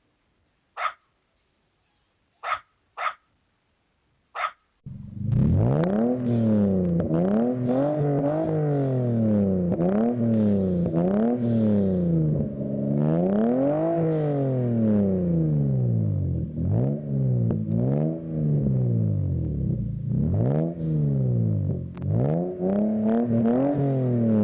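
A dog barks four times, single sharp barks. Then a loud continuous pitched drone takes over, rising and falling in pitch in smooth arches every second or two.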